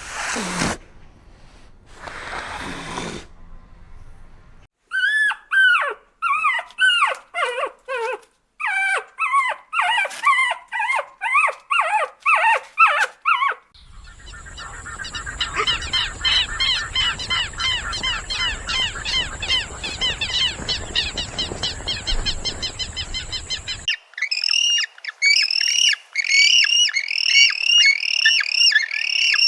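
Animal calls in several bursts: first a run of short yelping calls that rise and fall in pitch, about two a second; then a dense, rapid chatter of calls over a steady high tone; then quick repeated high squawking calls near the end.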